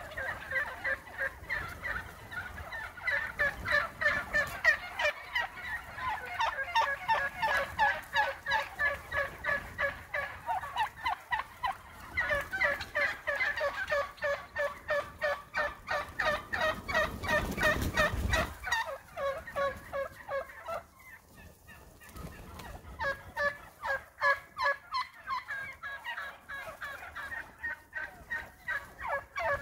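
A large flock of wild turkeys calling all at once: a dense, continuous chatter of many short overlapping calls, which thins out briefly about two-thirds of the way through.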